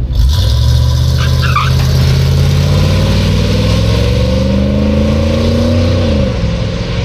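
Square-body Chevrolet dually pickup's 350 V8 launching at full throttle down a drag strip, its pitch climbing steadily for about six seconds before dropping near the end. The driver says the four rear tires spun loose out of the hole on this pass.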